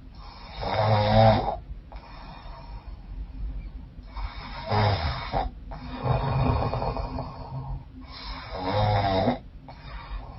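A woman snoring in her sleep, loud rough snores with breathing between them, coming about every couple of seconds in a regular cycle. The snoring comes with a blocked, runny nose.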